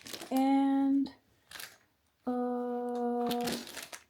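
A woman's voice: a drawn-out "aand", then about two seconds in a long filler hum held at one steady pitch, like "mmm" while she pauses.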